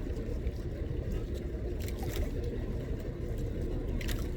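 A boat's engine running with a steady low rumble, with a few short hissing bursts of water or wind about two and four seconds in.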